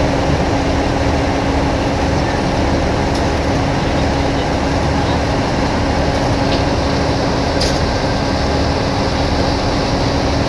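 Steady loud drone of airport ramp machinery, with a constant hum underneath and a few faint high ticks.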